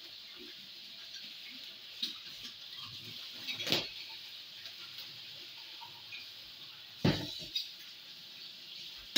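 Kitchen tap running into a stainless steel sink while dishes are washed, with a few sharp knocks and clatters of crockery and cutlery in the sink, the loudest about three and a half and seven seconds in.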